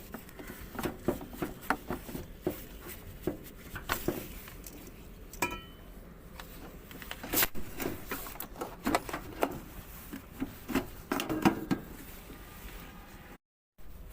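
Scattered clicks, taps and knocks of hand tools and parts being handled during washing machine repair work, over a low steady hum, with a brief squeak about five and a half seconds in. The sound cuts out for a moment near the end.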